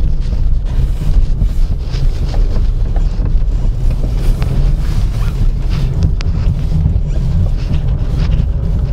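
Honda Mobilio Spike driving, heard from inside the cabin: a steady low road and engine rumble with irregular light knocks from behind the dashboard near the steering wheel, a knock whose cause the owner cannot find.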